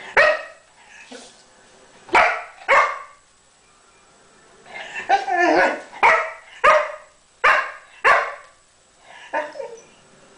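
English springer spaniel barking at a cat: a run of short, sharp barks with uneven gaps, some in quick pairs about half a second apart.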